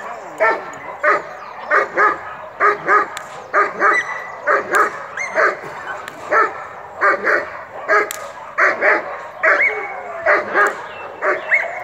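Belgian Malinois barking repeatedly at a helper in protection training: short, sharp barks at about two a second, some coming in quick pairs.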